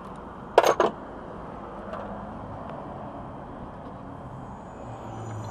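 A short metallic clatter about half a second in, a steel hand tool knocking against the van's metal cowl and other tools. After it comes a steady outdoor background hum, with a low rumble and a faint high whine rising near the end.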